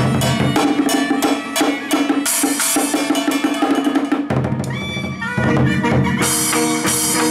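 Fast drumming with wooden sticks on a set of barrel drums, the strokes coming thick and even over pitched instruments playing along. The drumming thins out for about a second a little past the middle, then comes back full.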